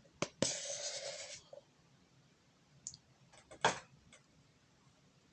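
Close-miked dry cornstarch crunching: a soft rasp lasting about a second, then a few scattered clicks, the sharpest a little past halfway.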